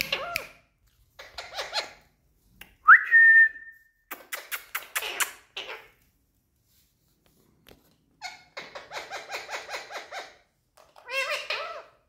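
Indian ringneck parakeets calling in short bursts of rapid chattering, with gaps between. About three seconds in comes the loudest sound, a sharp rising whistle that holds its note for about half a second.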